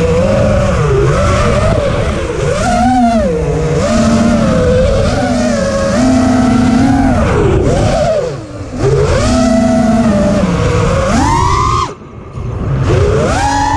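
FPV racing miniquad's motors and propellers whining, heard from the onboard camera, the pitch rising and falling constantly with the throttle over a rush of air. The sound dips briefly twice, near the middle and again about twelve seconds in as the quad rolls over.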